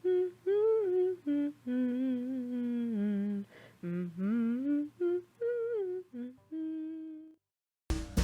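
A person humming a short tune, a run of held and sliding notes with brief breaks that stops about seven seconds in. A drum beat starts just before the end.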